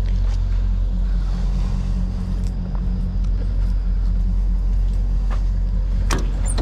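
An engine idling steadily with a low, even hum. A couple of sharp clicks or knocks come near the end.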